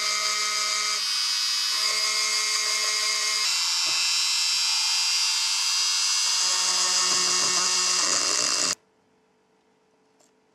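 Handheld rotary tool running at high speed, its bit grinding paint off the inside of a metal electric-motor rotor: a steady high-pitched whine that cuts off suddenly near the end.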